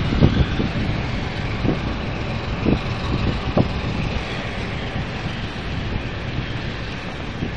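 Freight train running through a station: a steady rumble of wagons on the rails, with a few short low thumps.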